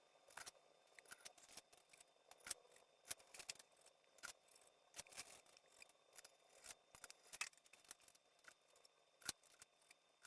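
Faint, scattered metallic clicks and taps of cylinder head bolts being handled, oiled and set into the engine's cylinder head.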